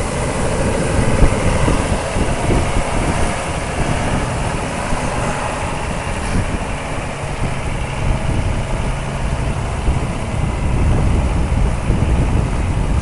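A heavy vehicle's engine running steadily, with a dense low rumble.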